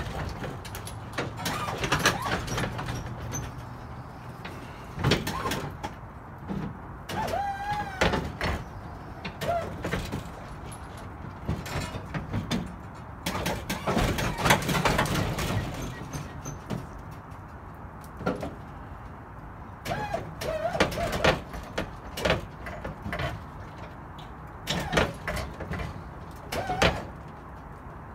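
The 1963 Chevrolet Impala lowrider's two-pump hydraulic setup being worked by the switches: repeated bursts of pump running with the suspension creaking and squeaking as the car moves. The batteries are low and uncharged, so the hydraulics have little power.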